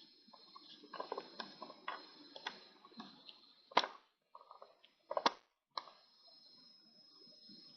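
Small irregular clicks and taps of metal tools handling watch parts, two of them sharper and louder, over a faint steady high-pitched whine. The sound cuts out abruptly for moments in the middle.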